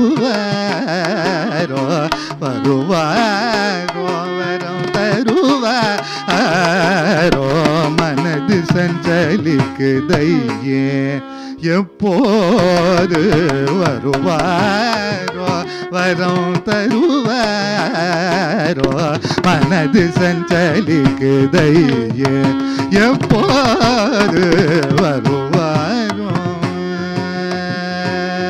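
Carnatic concert music: a male voice sings a heavily ornamented, gliding melody that the violin follows. Under it run mridangam strokes and a steady tambura drone, with a brief drop in the sound about twelve seconds in.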